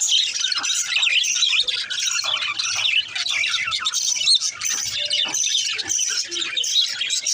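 Budgerigars chirping and chattering without pause, many quick high chirps following one another.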